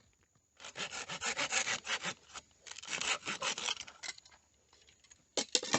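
A small hand saw cutting a stick of wood in two bouts of quick strokes, followed by a couple of sharp knocks near the end.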